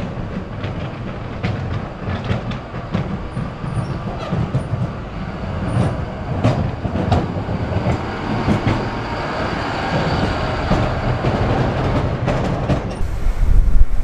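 John Deere wheel loader with a front plow blade running as it pushes snow along the street: a steady, loud engine rumble with many scrapes and clanks from the blade and machine.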